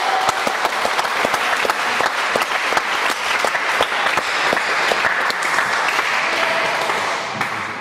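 Spectators clapping, dying away near the end.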